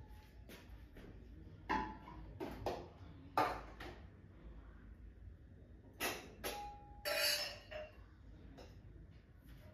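Scattered knocks and clinks of small hard objects being handled, about eight in all. Two of them ring briefly, like crockery or glass, and there is a longer scraping rustle about seven seconds in.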